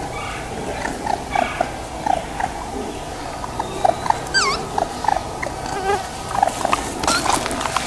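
Several baby raccoons purring: a run of short, soft trilling calls from more than one animal, overlapping and repeating every fraction of a second.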